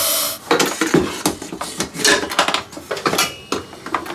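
Running tap water cuts off just after the start, then a string of irregular knocks and clatters as the metal inner pot of a Redmond multicooker is handled and set into the cooker and the cooker's lid is closed.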